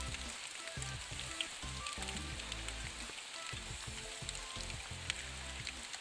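Steady rain, a fine hiss dotted with the ticks of single drops, under background music with low held notes.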